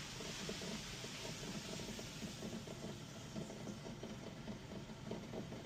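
Faint, steady machine hum with a soft hiss.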